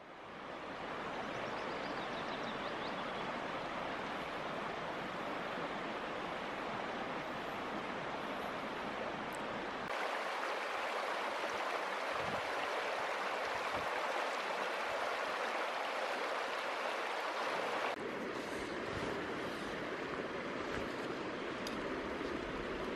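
Steady rush of a small trout stream running shallow over stones. It fades in at the start and changes tone abruptly twice: brighter about ten seconds in, then fuller near the end.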